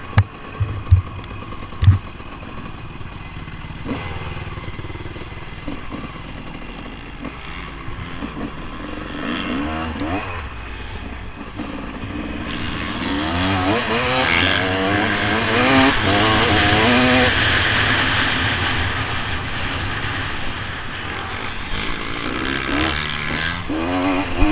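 Motocross dirt bike engine heard close up from on board. It runs fairly low with a few thumps in the first two seconds, then revs up and down over and over as the rider accelerates and shifts, loudest in the middle.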